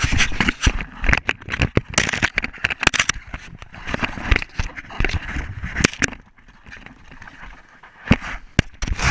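Traxxas Slash RC truck driving over rough ground: crackling and scraping with many sharp knocks, dropping quieter for a couple of seconds past the middle.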